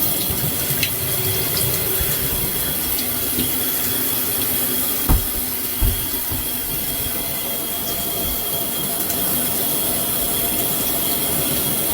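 Steady rushing of running water, with two dull thumps about five and six seconds in.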